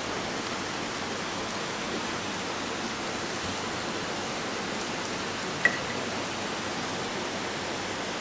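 Steady hiss of background noise, with one sharp click a little over halfway through.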